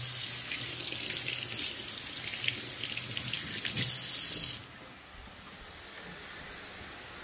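Water running steadily from a kitchen tap, shut off sharply about four and a half seconds in.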